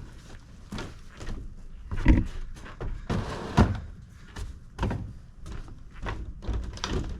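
A series of irregular thumps and knocks, the loudest about two seconds in and again about three and a half seconds in.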